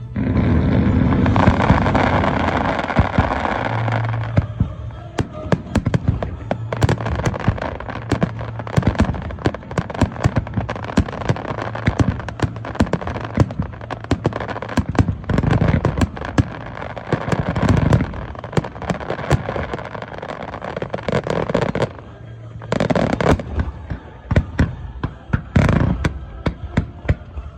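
Fireworks display: a dense, loud barrage of bursts in the first few seconds, then rapid bangs and crackling shells going off one after another, easing briefly a little past three-quarters of the way through before picking up again.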